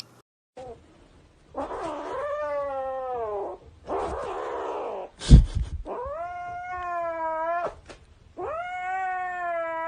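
A cat giving long, drawn-out meows, about four in a row, each lasting around two seconds and sliding in pitch, with a sharp thump a little past halfway.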